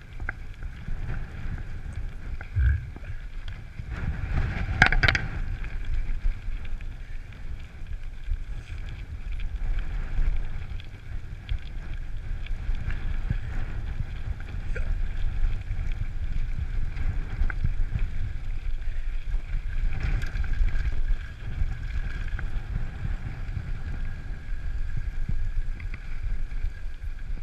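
Mountain bike riding downhill, with wind buffeting the microphone over the tyres rumbling and the frame rattling on gravel. Sharp knocks come as the bike jolts over bumps, the loudest about five seconds in.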